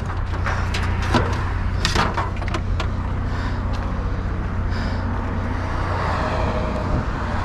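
A vehicle engine running steadily underneath, with sharp knocks and clatter of junk being handled in the first few seconds.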